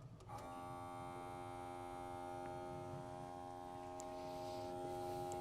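Electric air pump of an engine smoke leak-test machine switching on and running with a steady hum, its pitch settling briefly just after it starts. The machine is pressurizing the engine with smoke to find a suspected vacuum leak behind a misfire.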